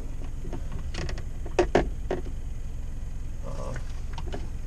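Short clicks and knocks of fishing gear being handled in a car's open cargo area, the loudest two close together about one and a half seconds in, over a steady low rumble.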